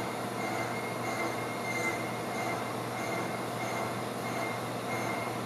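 Slitting saw on a milling machine cutting through a metal ring, a steady machine-and-cutting noise with a high squeal that pulses about twice a second.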